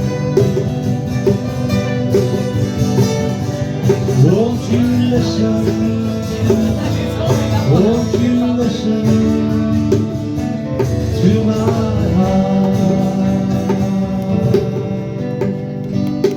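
Live country band playing an instrumental passage, with guitar chords under a lead instrument that slides up into its notes several times.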